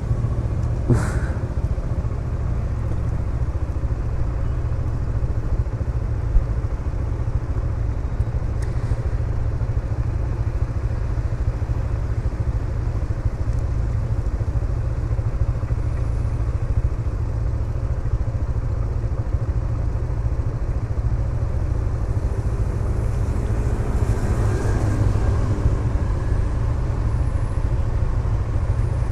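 Motor scooter idling while stopped, a steady low rumble, with traffic passing on a wet road; a vehicle goes by a little before the end.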